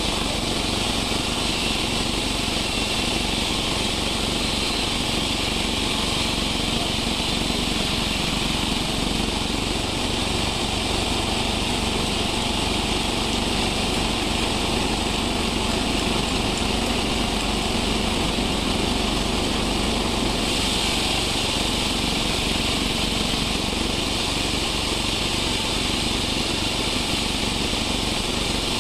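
Sawmill machinery running steadily, a continuous mechanical din without breaks or changes.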